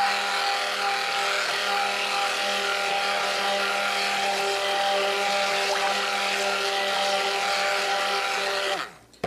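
Handheld stick blender running steadily with a motor hum, immersed in cold process soap batter of oils and lye water; it switches off about nine seconds in, the hum falling in pitch as the motor winds down.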